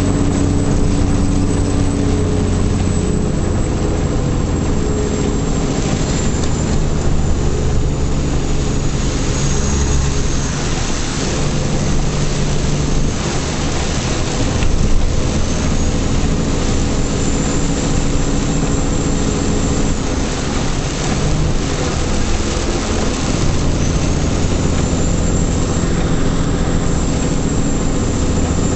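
Truck engine running, heard from inside the cab over steady road and tyre noise on a wet road, its note stepping up and down several times. A faint high whine slides up and down now and then.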